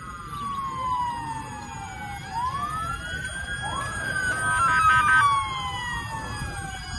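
Several emergency-vehicle sirens wailing at once, their pitches sweeping up and down and overlapping, over a steady low rumble. A short cluster of steady notes about five seconds in is the loudest moment.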